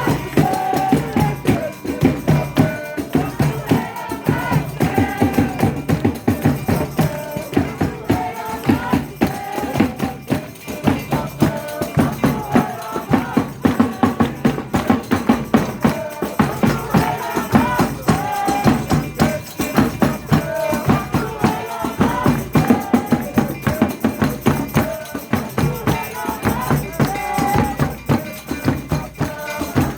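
Folia de Reis ensemble playing Brazilian folk music: pandeiros (tambourines) keep a fast, steady beat under a wavering melody line.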